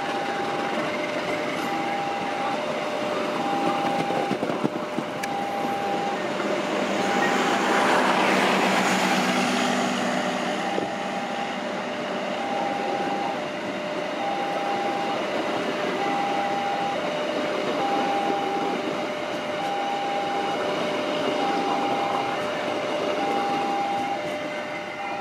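Passenger trains rolling past on the tracks, the rumble swelling to its loudest about eight seconds in. Throughout, the level-crossing warning alarm beeps a two-tone signal in a steady on-off rhythm, a little more than once a second.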